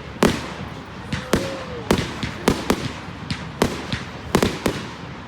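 Fireworks going off in quick succession: about a dozen sharp bangs at uneven intervals, some close together in pairs, a few with a short echoing tail.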